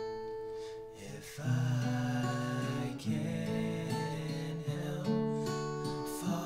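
An acoustic guitar strummed slowly under two male voices singing a slow ballad in held, drawn-out notes.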